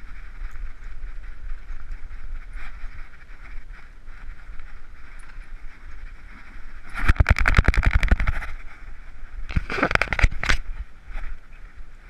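Handling noise from a GoPro HERO3 strapped to a dog's head: steady rubbing hiss from the head-strap mount, with two bursts of rapid scratching and rattling clicks about seven and ten seconds in as the camera is jostled.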